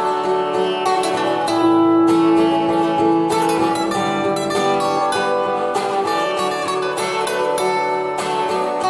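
Steel-string cutaway acoustic guitar with a capo, fingerpicked, playing a slow melody over plucked chords, with one note held for about two seconds near the start.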